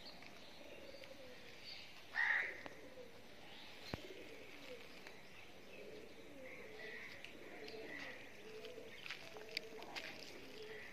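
Birds calling: doves cooing low and repeatedly, with faint chirps of small birds and one louder call about two seconds in.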